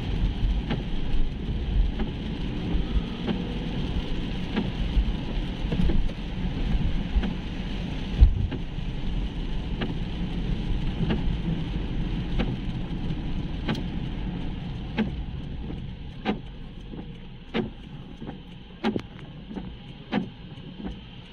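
Car cabin noise while driving on a wet road: engine and tyre rumble with a wet hiss, easing off in the last third as the car slows. Sharp clicks come throughout, settling into an even beat of about one every second and a half near the end.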